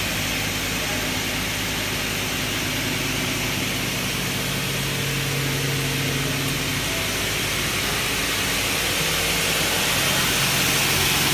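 Double-head aluminium cutting saw running with its blade motors spinning: a steady motor hum under an even hiss, growing slightly louder near the end.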